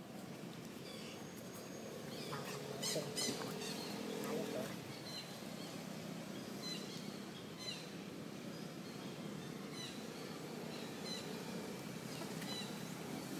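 Outdoor ambience: short high chirps, each sliding down in pitch, repeat about once a second over a steady low background din. A brief cluster of sharp rustling clicks comes about three seconds in.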